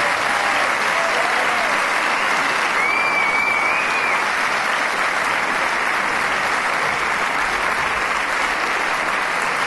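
Concert audience applauding steadily, with a brief high, wavering tone about three seconds in.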